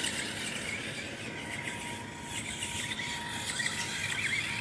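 Small battery-powered Monster Jam Megalodon RC stunt car running on grass, its electric motors whirring as it drives and flips over. Birds chirp in the background.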